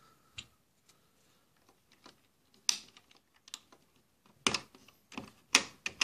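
Plastic keycaps being pressed back onto an electronic typewriter's key stems: separate sharp clicks, a few spread out at first, then several in quick succession near the end.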